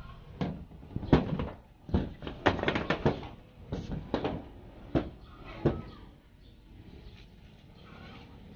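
Irregular knocks and rattles on corrugated metal roofing as a worker steps about on it and pulls service cable through a hole, about a dozen sharp hits in the first six seconds, then it settles to a low rumble.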